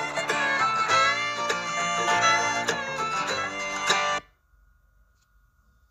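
Instrumental background music with quick plucked notes, stopping abruptly about four seconds in and leaving near silence.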